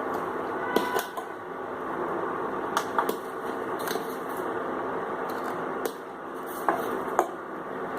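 Kitchen utensils clinking against a pan about seven times, a few of the strikes ringing briefly, over a steady low hiss.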